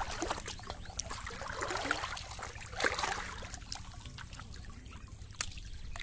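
Shallow pond water trickling and sloshing as hands lift and handle a plastic bottle fish trap, with small clicks and knocks from the bottle and one sharper click near the end.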